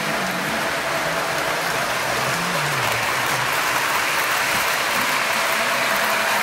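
O scale model train running on its track, a steady rolling hiss and rumble from the wheels and motor with a faint steady hum.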